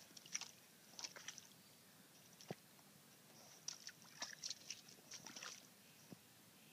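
A dog's paws stepping through shallow creek water over loose stones: faint, scattered small splashes and stone clicks in a few clusters, with an occasional low knock of a rock shifting underfoot.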